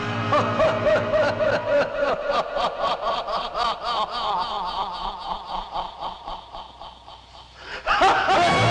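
A long run of laughter: a fast train of 'ha-ha' pulses, rising and falling in pitch, that dies away over about seven seconds. A loud sustained tone cuts in near the end.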